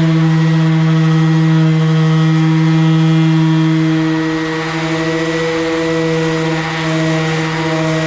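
DeWalt electric sander running steadily with 80-grit paper on the boat's hull, a constant motor hum with a steady pitch that eases slightly in level about halfway through as the pressure on the pad changes.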